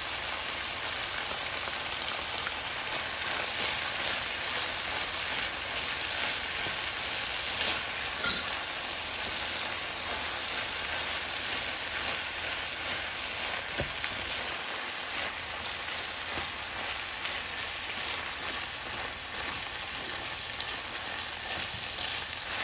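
Rice and vegetables frying in a nonstick skillet, a steady sizzling hiss, while a wooden spoon stirs through it with soft scraping strokes now and then.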